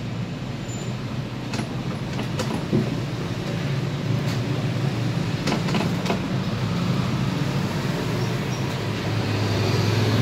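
Scania K320IA articulated bus engine running under way, heard from the driver's cab: a steady low drone that grows slowly louder, with a few faint clicks over it.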